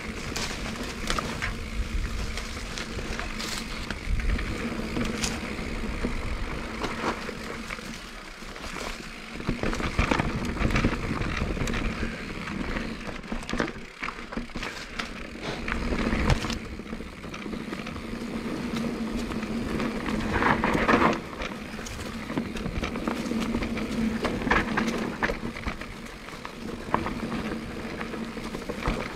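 Canyon Torque:ON electric mountain bike ridden down a dirt forest trail: tyres rumbling over the ground with frequent knocks and rattles from the bike, and a few louder surges.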